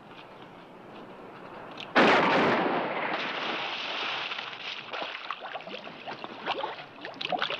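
A heavy splash into a water tank about two seconds in, the loudest moment, followed by water sloshing and splashing.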